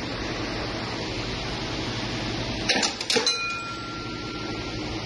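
Several sharp metallic clinks in quick succession about three seconds in, the last ringing on briefly with a clear tone, over a steady background hum.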